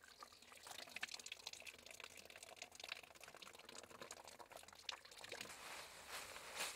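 Faint, steady splashing of spring water running from a metal pipe spout into cupped hands.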